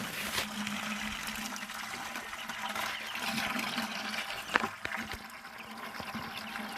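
Water running steadily out of a hose siphoned from a barrel, a continuous splashing flow, with a brief knock about halfway through.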